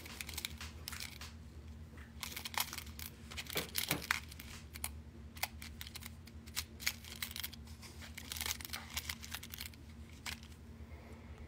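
Tumbled sugilite stones clicking and rattling against one another as fingers stir them around in a small cardboard box, with some rustling of the box, in irregular clusters of short clicks.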